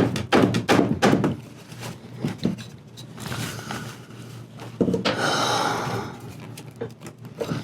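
Knocks and thumps from handling a wooden antique armchair frame. About five seconds in comes a drawn-out creak of wood on wood as a stiff glued joint is worked to pull it apart.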